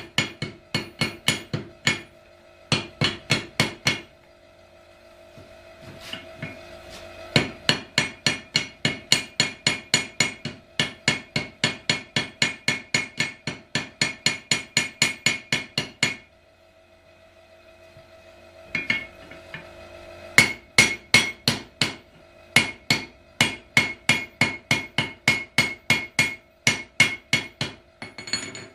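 Hammer blows on steel at the anvil while forging a froe: fast, even runs of ringing strikes, about three a second, broken by short pauses. A steady faint hum sounds under the strikes and in the pauses.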